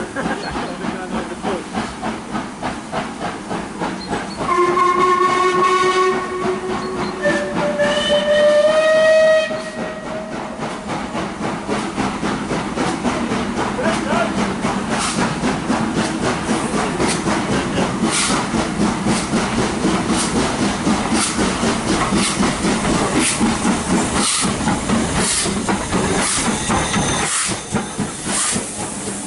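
Steam locomotive working, its exhaust beats pulsing steadily with a hiss of steam, and two whistle blasts about five and eight seconds in, the second higher-pitched than the first.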